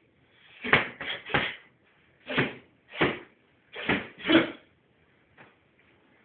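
Strikes landing in a sparring clinch: seven quick thuds in under four seconds, unevenly spaced, then one faint one.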